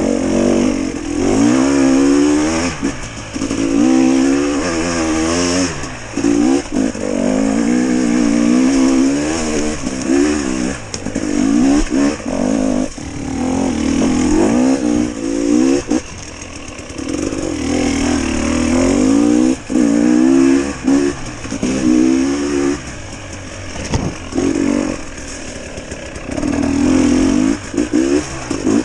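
GasGas enduro motorcycle engine being ridden hard, the revs rising and falling over and over as the throttle is opened and shut every second or two.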